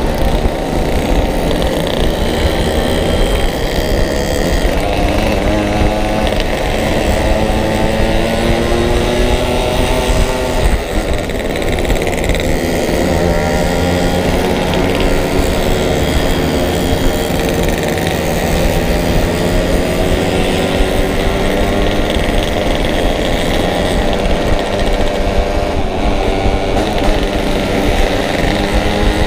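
Yamaha RX-King two-stroke single-cylinder motorcycle engine running under way, its revs rising and falling as the rider accelerates and eases off, with a short drop in revs about ten seconds in. Heard from on the bike, with wind rumble on the microphone.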